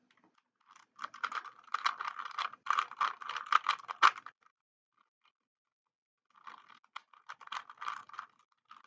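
3x3 Rubik's cube being turned by hand: fast runs of clicking, rattling plastic layer turns while a last-layer algorithm is worked. There are two runs, separated by a pause of about two seconds.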